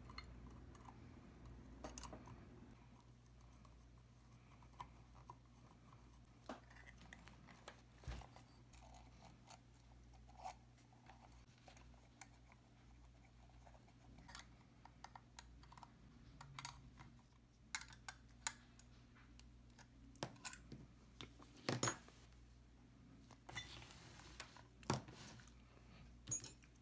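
Scattered small metallic clicks and taps of hardware being handled as a Dynaco tube-amplifier output transformer is reassembled: threaded rods slid through the laminations, nuts fitted, steel end covers seated. A couple of sharper knocks come near the end, over a faint steady low hum.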